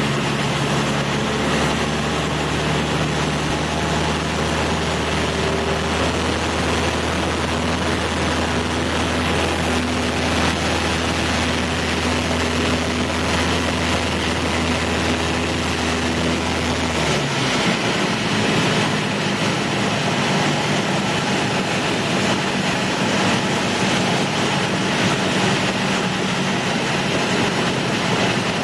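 Cessna 172's piston engine and propeller droning steadily in the cockpit on approach. About 17 seconds in the deep low part of the note drops away and the engine tone changes, as the power is brought back for landing.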